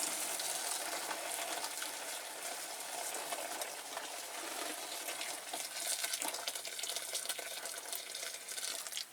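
Boiling water being poured from a kettle into a pot of metal toy parts: a steady hissing, splashing pour with small crackles.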